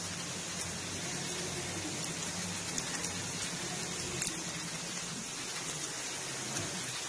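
Oil sizzling steadily as breaded poha-and-potato fingers shallow-fry in a pan, with scattered small pops and crackles; the fingers have just been turned and their second side is cooking.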